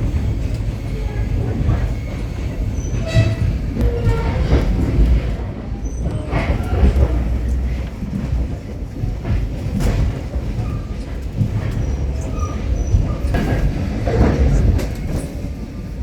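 Passenger train running on the rails, heard from on board: a steady low rumble with irregular knocks and rattles of the wheels and carriage.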